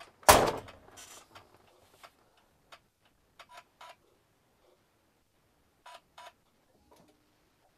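A truck tractor's cab door shutting with one heavy slam about a third of a second in, followed by a few light clicks and knocks spread over otherwise quiet seconds.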